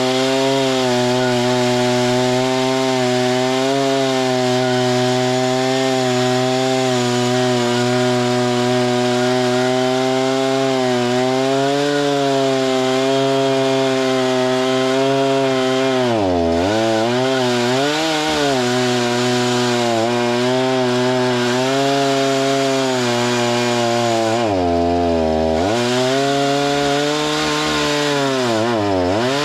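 Small gasoline engine of a saw running hard while milling lumber, steady in pitch, then bogging down and recovering a few times, about halfway through and near the end.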